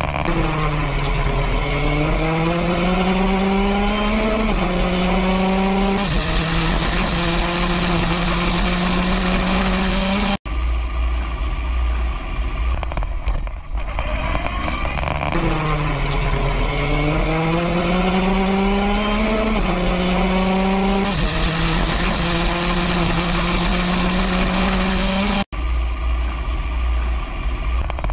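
Open-wheel race car engine heard from the cockpit, with wind and road noise. The engine note drops as the car slows, then climbs through a gear change and holds steady. After a brief cut about ten seconds in, the same fall and climb repeats.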